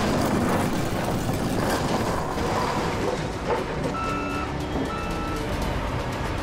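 Heavy machinery clearing rock from the road: a steady diesel rumble with a reversing alarm beeping twice about four seconds in.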